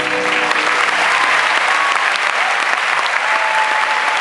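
Concert audience applauding, the band's final chord dying away in the first half second.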